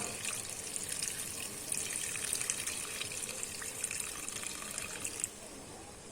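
Water being poured into a pan of frying chicken and potatoes, a steady splashing flecked with crackle that stops suddenly about five seconds in.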